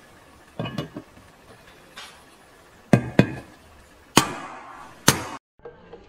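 About seven sharp knocks at uneven intervals, the loudest two in the middle, some ringing briefly: knocking on the heated Minarelli AM6 engine case to work the crankshaft bearings out.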